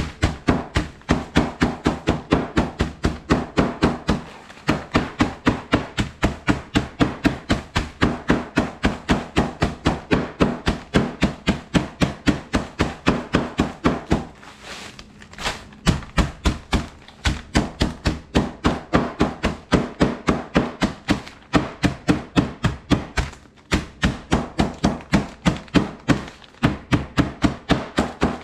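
Metal meat tenderizer mallet pounding Ritz crackers in a plastic bag on a wooden cutting board: rapid, steady thuds several times a second, with a short pause twice, crushing the crackers nearly to powder.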